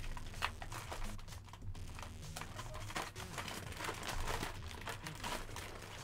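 Hands rummaging through toys inside a large paper storage sack: the paper crinkles and rustles, with irregular small knocks and clicks of toys shifting against each other.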